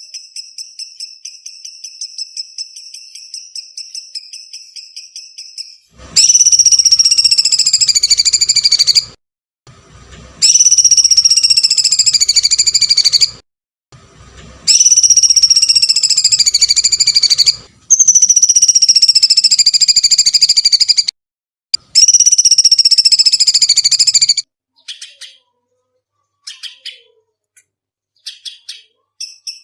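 Songbird training call: a fast, high ticking trill, then five loud, long, shrill screeching calls of about three seconds each, each dipping slightly in pitch, followed by scattered short chirps near the end.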